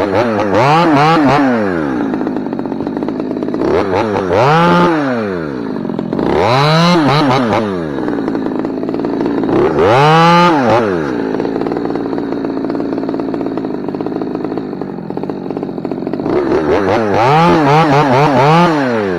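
Chainsaw cutting oak limbs, revving up and dropping back to idle about five times.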